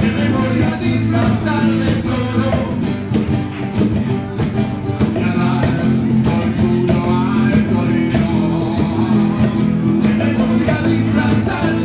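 A man singing with a strummed nylon-string acoustic guitar, played live.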